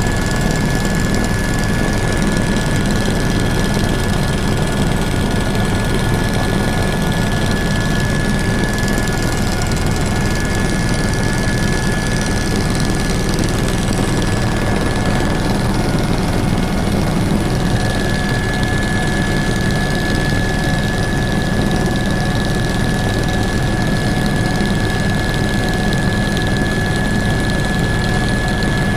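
Helicopter in flight: steady engine and rotor noise with a constant high-pitched turbine whine over it.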